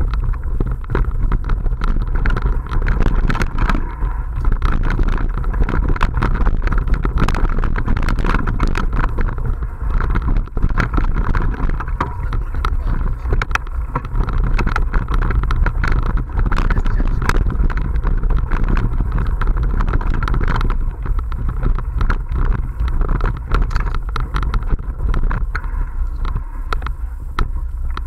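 A mountain bike ridden fast over bumpy dirt singletrack, heard from a camera mounted on the bike. Wind rumbles on the microphone under a constant irregular rattle and knocking from the bike and camera mount as the tyres run over roots and ruts.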